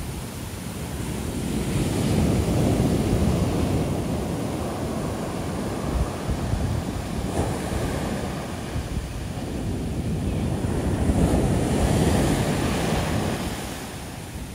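Shore-break waves breaking and washing up a sandy beach, the surf swelling louder about two seconds in and again about eleven seconds in, then easing off near the end.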